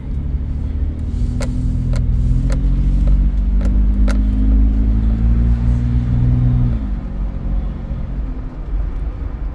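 Toyota 4Runner engine heard from inside the cabin, pulling under acceleration, its note climbing slowly in pitch and loudness for about six seconds. Near the end the note falls and drops away abruptly, leaving a lower road rumble.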